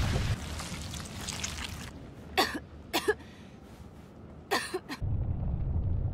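A young woman coughing from dust in three short fits, the middle one a quick double cough. A low rumble dies away at the start and a low rumble comes back about five seconds in.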